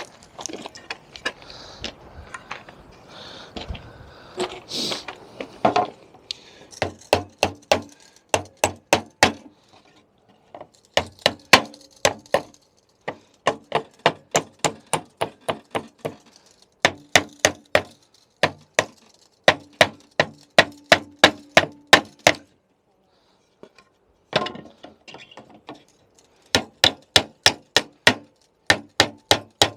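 Hammer knocking nails out of old pallet planks: runs of quick ringing blows, about four a second, broken by short pauses. Before the hammering starts, wood is shuffled and handled for a few seconds.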